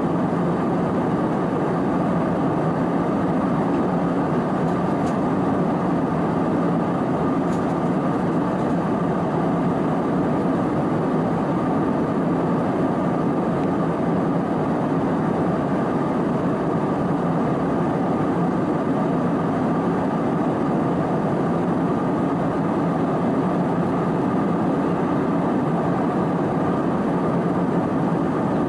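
Steady cabin noise of an Airbus A320-216 at cruise: an unchanging rush of airflow over the fuselage mixed with the drone of its CFM56 engines, with a faint steady tone above it.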